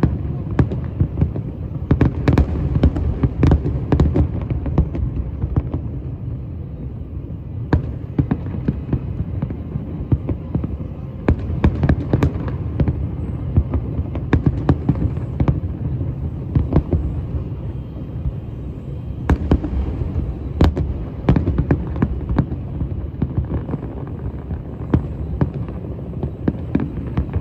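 Fireworks going off: many irregular sharp bangs and pops, some in quick clusters, over a continuous low rumble.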